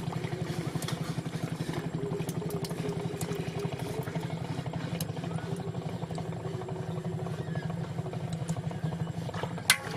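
A small engine running steadily with a fast, even beat. One sharp click near the end.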